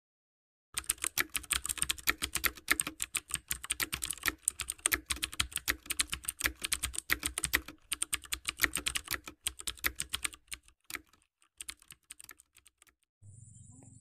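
Typing sound effect: keys clicking rapidly in a fast, uneven run, which thins to a few scattered clicks and stops a couple of seconds before the end.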